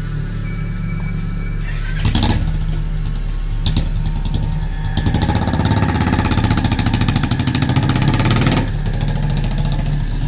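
Engine revving: two short bursts of revs about two and four seconds in, then a longer run of climbing revs lasting about three and a half seconds before it drops back, over a low steady drone.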